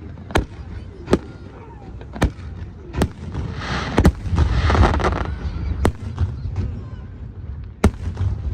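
Fireworks display: sharp aerial shell bangs at irregular intervals, roughly one a second, with a louder rush of hiss and crackle around the middle.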